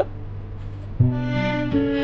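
Background music of held, sustained notes. A louder chord with new notes enters about a second in, and the notes shift again near the end.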